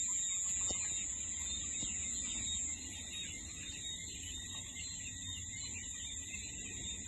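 Night chorus of crickets: a steady high-pitched trill over a busy layer of chirps.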